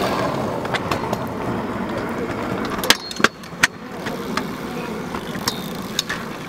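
Stunt scooter rolling on asphalt, its small hard wheels making a steady rumble, with three sharp clacks about three seconds in as it hits a concrete ledge.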